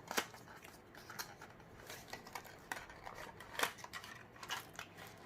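An earphone retail box being opened by hand: a string of light, irregular clicks, taps and scrapes of the packaging, a few of them louder.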